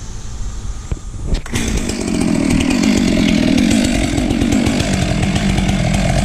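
Chainsaw idling, then throttled up sharply about a second and a half in and held at full revs under load as the bar plunges into the trunk for a sawdust (kerf) cut.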